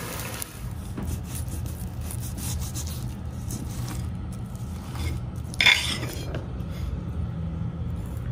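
Metal utensils scraping and rubbing on a barbecue grill, with one louder scrape a little past halfway, over a steady low hum.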